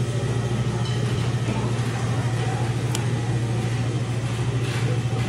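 Steady low hum of restaurant equipment at an even level, with one light click about three seconds in.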